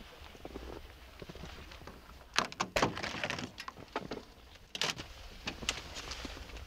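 A van's sliding side door being unlatched and slid open, with a few sharp clunks, the loudest near the middle, over a steady low rumble.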